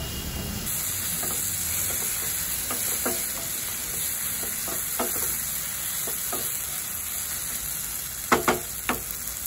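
Chopped onions and tomato masala sizzling in a nonstick kadhai while being stirred with a wooden spatula, a steady hiss with scattered scrapes of the spatula against the pan. A few sharp knocks near the end.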